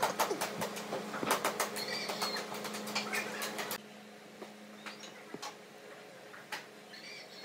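Glued wooden strips being handled and pressed together on a plastic sheet: a dense run of clicks, knocks and crinkling for the first four seconds or so, then only a few scattered clicks, over a steady low hum.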